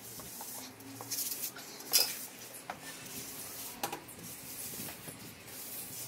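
Rubber grout float scraping across porcelain floor tiles as grout is spread and pressed into the joints, with a few sharp clicks as the float knocks against the tiles, the loudest about two seconds in.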